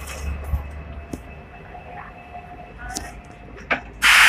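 Inside a stopped Hong Kong double-decker tram: a low steady rumble under scattered clicks and rustling as passengers with plastic bags file out past the fare reader. Near the end comes a loud, short rush of noise lasting about half a second.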